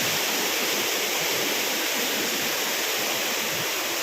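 Wah-kaba Falls' falling water making a steady rush with no let-up.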